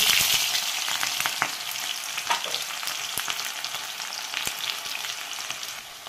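Sliced onions sizzling in hot mustard oil in an iron kadhai, freshly added: a loud frying hiss that slowly dies down, with scattered pops and the scrape of a spatula stirring.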